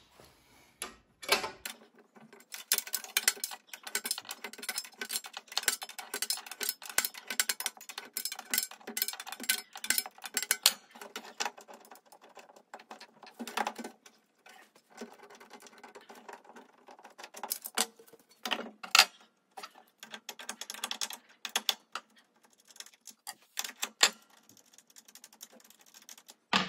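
Quick metallic clicking and rattling as the bolts holding a DeWalt benchtop planer's infeed and outfeed tables are unscrewed and handled. The clicks come thick and fast for the first several seconds, then thin out to scattered clicks.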